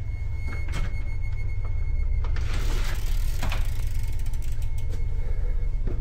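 Clicking and rattling of a doorknob and its latch as a wooden interior door is worked open, with a short noisy stretch in the middle and a run of small ticks near the end, over a steady low rumble.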